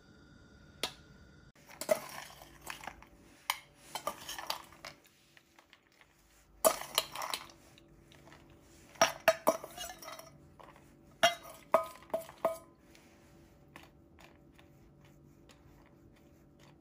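Metal spoon clinking and scraping against a metal cake ring and baking tray in scattered bursts, a few strikes leaving short metallic rings.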